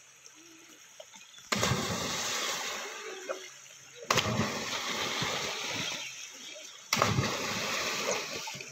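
Three loud splashes, each a sudden crash of water that fades over a second or two: children jumping into a river pool from a high bank.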